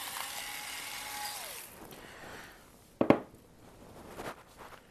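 Two electric salt and pepper grinders whirring as they grind sea salt and black pepper. Their motor pitch drops as they stop about a second and a half in. A sharp knock follows about three seconds in, then a fainter one.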